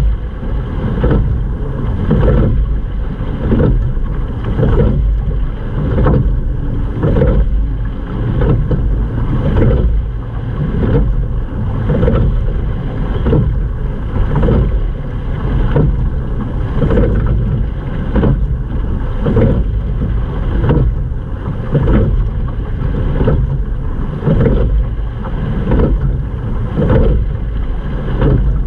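Rowing shell under way, stroke after stroke: a regular pulse about once a second from the oars and hull, over water rushing along the hull and wind on the microphone.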